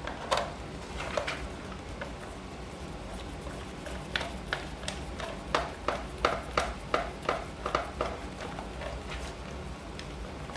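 Irregular light clicks and taps of hands working on the plastic casing and screws of a small 12-volt tire compressor, with a quicker run of about a dozen taps in the second half.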